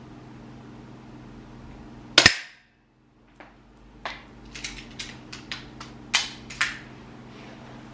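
A single sharp shot from an APS competition airsoft pistol about two seconds in. It is followed from about three and a half seconds by a run of small clicks and knocks as the pistol and a rack are handled, over a steady low room hum.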